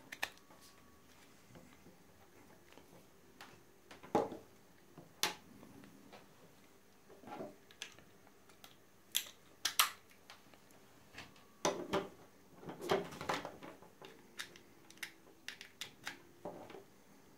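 Handling noise: scattered light clicks and knocks of a plastic wall charger, USB power meter and charging cable being handled and set down on a desk.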